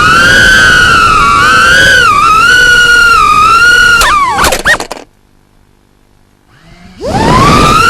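Small FPV drone's brushless motors and propellers whining, the pitch wavering up and down with throttle. About four seconds in the whine drops sharply with a few clicks and cuts out, stays quiet for about two seconds, then spins back up with a quickly rising whine.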